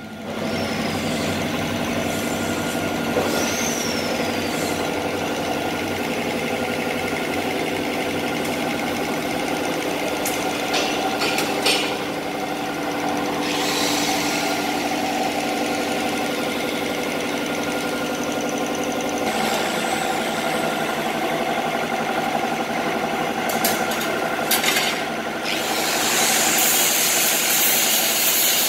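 Steady hum of workshop machinery running, with a few sharp clicks and stretches of hiss, the loudest hiss near the end.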